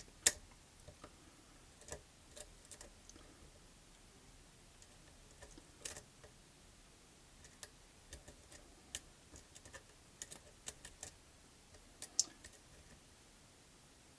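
Faint, irregular metallic clicks and ticks of a lock pick working the pins of a pin tumbler lock, with a sharper click just after the start and another about twelve seconds in.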